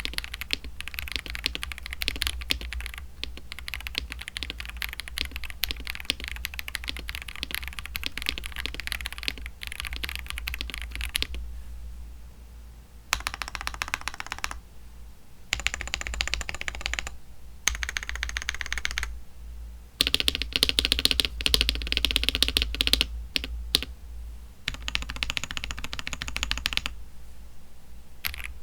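Typing on a mechanical keyboard fitted with stock, unlubricated Akko CS switches (a KTT-made budget line): fast, continuous key clacking for about eleven seconds, then shorter bursts of typing separated by brief pauses. A steady low hum sits underneath.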